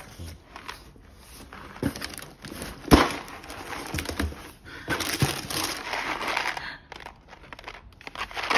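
Brown packing paper rustling and crinkling as hands dig through a cardboard box, with one sharp knock about three seconds in, the loudest sound. Two longer stretches of rustling follow, about halfway through and again near the end.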